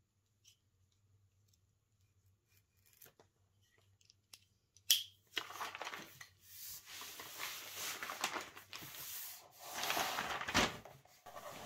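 Tape being peeled from brown kraft paper: faint picking ticks, then a sharp tear as it pulls free about five seconds in. This is followed by continuous crinkling and rustling of the brown paper wrapping as it is unrolled from a roll of leather.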